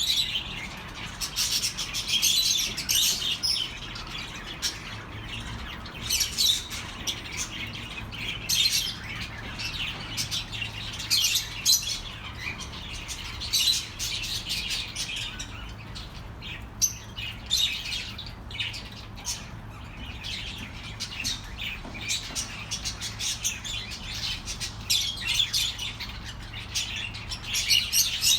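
Budgerigars chirping and chattering without a break, many short, quick calls overlapping.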